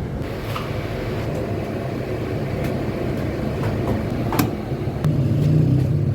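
Bakery machinery running with a steady low hum. A sharp knock comes about four seconds in, with a few fainter clicks elsewhere.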